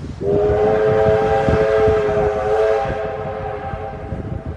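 Steam whistle of the approaching R class steam locomotive R761, one long blast of about four seconds that starts just after the beginning and eases off in its last part.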